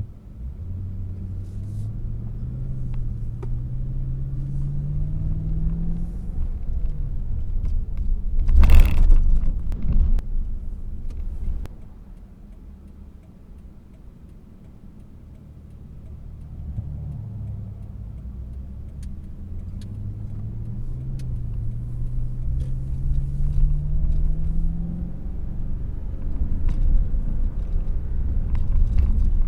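Car engine and road rumble while driving, the engine note rising twice as the car accelerates. A single loud thump comes about nine seconds in.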